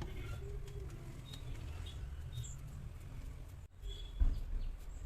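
Hands pressing and patting soft rice dough flat on an oiled banana leaf, with small squeaks and light taps and a thump a little after four seconds, over a steady low rumble.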